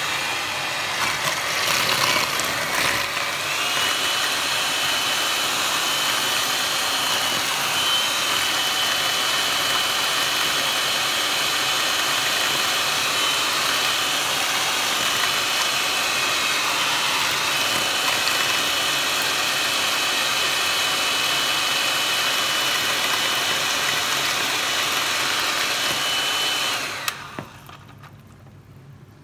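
Electric hand mixer running steadily, its twin wire beaters whipping a milky cookie batter in a plastic bowl, with a thin motor whine that steps up slightly about three seconds in. The motor cuts off suddenly near the end, followed by a couple of faint clicks.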